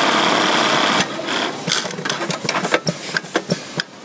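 Dürkopp Adler 580-321 lockstitch buttonhole sewing machine running fast and steady, then stopping about a second in, followed by a string of irregular mechanical clicks and clacks as the machine finishes its cycle.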